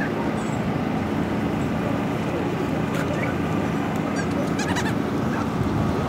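Steady low hum and distant murmur of a crowd, with a few brief high-pitched cries from dogs, about half a second in and again around four to five seconds.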